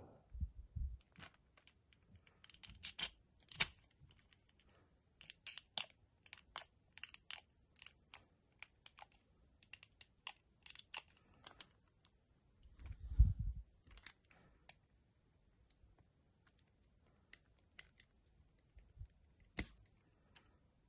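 Small irregular clicks and scrapes of a thin metal tool prying at the hard plastic parts of a spray bottle's trigger pump head, its cap and trigger lever. A duller thump about thirteen seconds in is the loudest sound.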